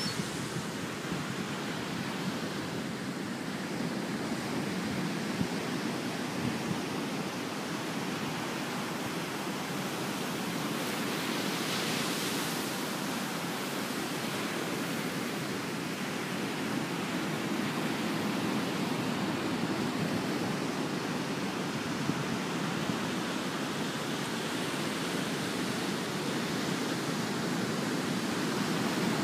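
Steady rushing noise of ocean surf, swelling a little about twelve seconds in.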